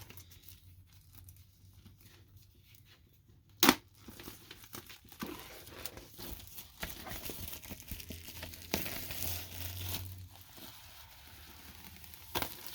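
Plastic wrapping being torn and crinkled off a vinyl record jacket, with a sharp snap a few seconds in and rustling for about six seconds after it.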